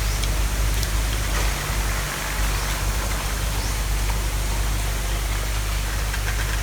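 Wind buffeting the microphone: a steady low rumble under a constant rushing hiss.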